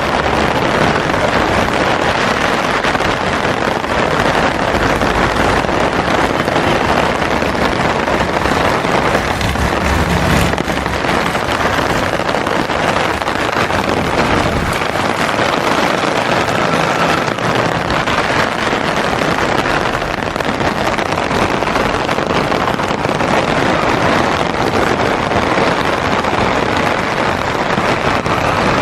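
Steady heavy rain drumming on an umbrella canopy, a dense even patter, with a brief low thump about ten seconds in.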